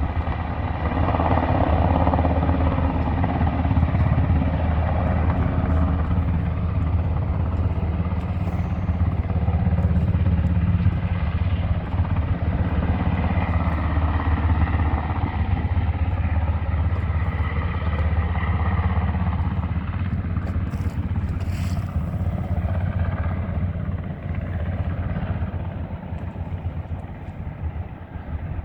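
Firefighting helicopter's rotor and engine running loud and close, with a rapid low beat of the blades, becoming fainter near the end.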